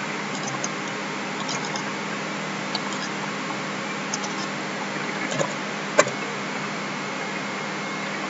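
Scattered soft clicks of a computer mouse and keyboard keys, with one sharper click about six seconds in, over a steady hiss and faint hum.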